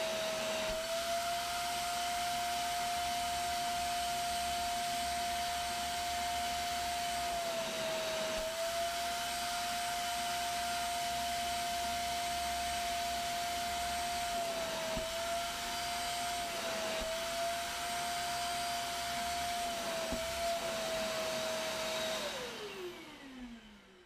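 A Wap GTW12 wet-dry vacuum cleaner runs as an upholstery extractor, its motor giving a steady whine with a rush of suction that dips briefly in pitch several times. Near the end it is switched off and the whine winds down.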